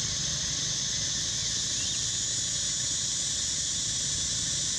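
A steady, high-pitched insect chorus with a low rumble underneath.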